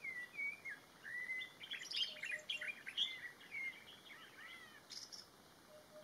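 A black thrush singing a varied song of short whistled phrases that glide up and down, with higher squeaky notes mixed in. It falls silent about five seconds in.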